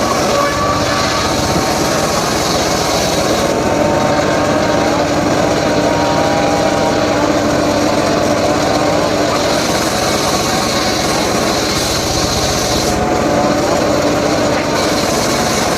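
A small engine-driven saw running under load while cutting mahogany wood, its engine pitch wavering a little as it bites, with a steady rasping hiss that swells and fades in stretches.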